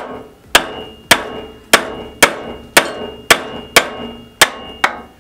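A hammer striking a metal go-kart rear wheel hub to drive it off the axle: about ten sharp blows at roughly two a second, each with a brief metallic ring.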